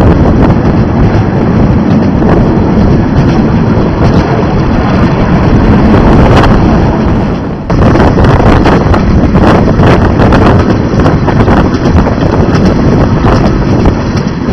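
Wind buffeting the microphone over the steady rumble of a narrow-gauge steam train's carriage running along the track, with a short dip about halfway through.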